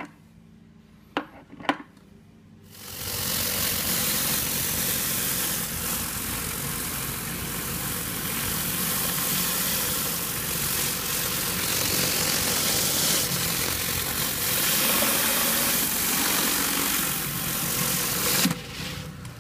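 Two sharp metal clicks, then, about three seconds in, a pressure-washer surface cleaner (an 18-inch General Pump Hammerhead with a Mosmatic swivel) starts running on concrete: a loud, steady rush of high-pressure spray under the spinning bar over the pressure washer's engine hum. It stops abruptly shortly before the end.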